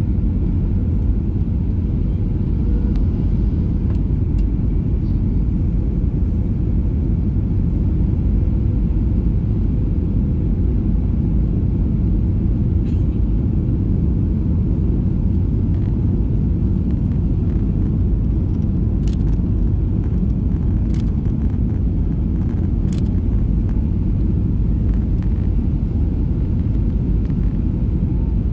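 Cabin noise in a Boeing 737-800 on approach with flaps extended: a steady low rumble of the engines and airflow. A faint steady hum and a few light clicks sit under it.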